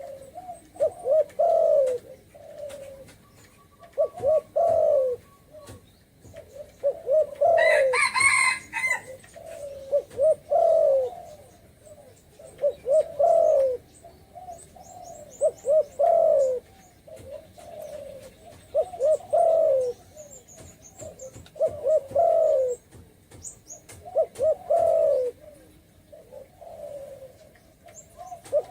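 Spotted dove cooing: short phrases of several low notes, one about every three seconds. About eight seconds in, a brighter call with many overtones breaks in over one phrase.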